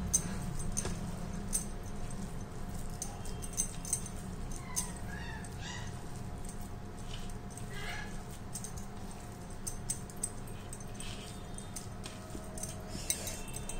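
A hand kneading crumbly fresh cheese dough on a steel plate: soft pressing and rubbing with many light clicks, over a steady low hum.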